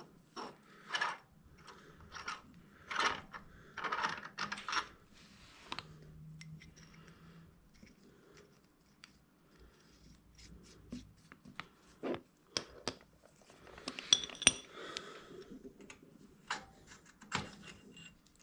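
Hand tools and steel suspension-linkage parts of a Royal Enfield Himalayan clinking and knocking in irregular short hits as the linkage is taken apart, with a couple of brief metallic rings past the middle.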